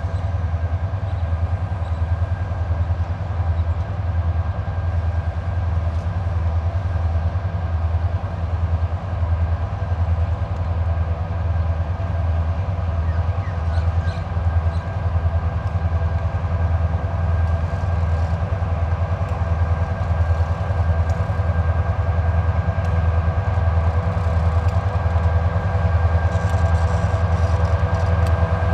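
Diesel-electric locomotives of a TasRail coal train, 2054 and 2051, running as the train approaches slowly to stop: a steady low engine throb with a steady whine over it, growing a little louder near the end.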